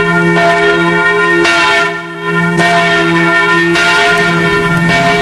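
Church bells ringing, struck one after another about once a second, each strike ringing on.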